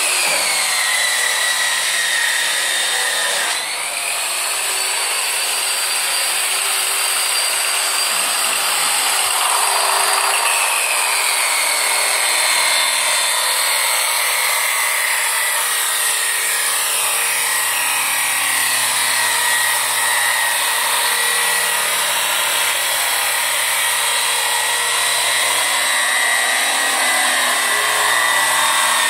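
Handheld electric brush sander running along a wooden board, its spinning brush scouring out the soft grain to raise the wood figure (ukezukuri). A steady high motor whine over a scrubbing noise, the pitch sagging as the tool bears into the wood (at the start and again about ten seconds in) and climbing back when it eases off.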